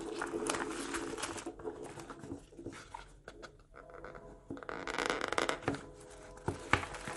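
Clear plastic wrap crinkling and crackling as it is torn and pulled off a small cardboard box, with irregular handling rustles and a few sharp clicks. The loudest stretch of crinkling comes about five seconds in.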